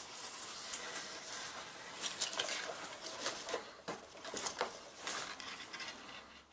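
Light rustling and crinkling with scattered small clicks as hands handle jumper wires and a connector around a robot body wrapped in crumpled aluminium foil.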